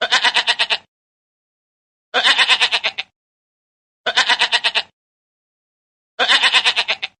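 A farm animal bleating four times, each bleat under a second long with a fast quaver, repeated almost identically about every two seconds as a looped sound effect.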